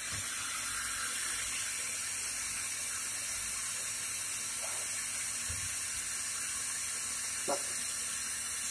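Steady hiss of a Cosmec CNC machining centre milling a block held in its rotary lathe chuck, with a couple of faint knocks in the second half.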